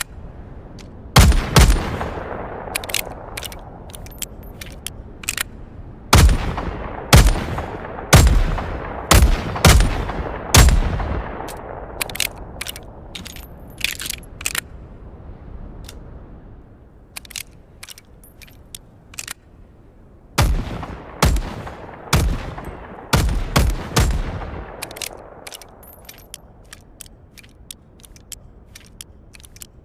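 P-4 Senator revolver sound effect: loud single gunshots with long echoing tails. There is one shot about a second in, then two runs of about five shots each, roughly a second apart. Many short metallic clicks come between the runs.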